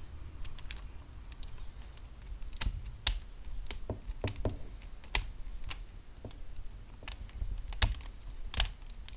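Lego Technic plastic parts clicking and snapping as a beam is pressed onto the pins of a pneumatic engine model: a string of irregular sharp clicks, the loudest two near the end.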